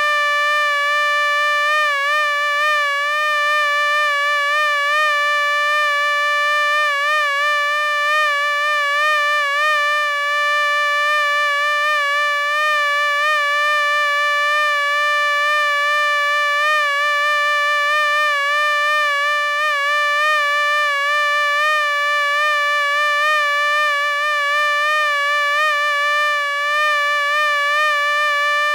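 Mosquito whine: the steady high buzz of its beating wings, one continuous tone that wavers slightly in pitch.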